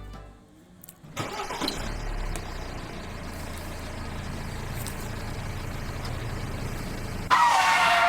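A small engine-like motor starts about a second in and runs steadily. Near the end a louder sound with a falling pitch cuts in briefly.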